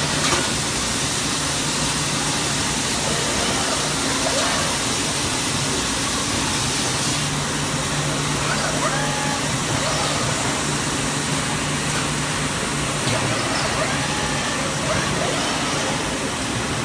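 Steady hiss of brazing torch flames in a robotic brazing cell, over a constant low machine hum.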